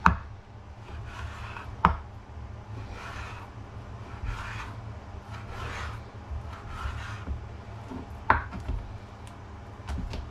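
Kitchen knife slicing raw bacon on a wooden chopping board: a run of short scraping strokes of the blade through the rashers onto the wood. There are sharp knocks on the board near the start, about two seconds in and near the end, over a low steady hum.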